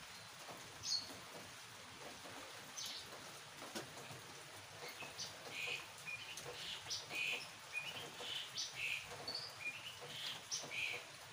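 Small birds chirping in quick, short, high calls, a few at first and many from about halfway in, over the faint steady hiss of rain.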